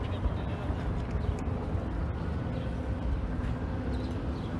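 Steady, fluctuating low rumble of wind buffeting the microphone outdoors, with no clear event standing out above it.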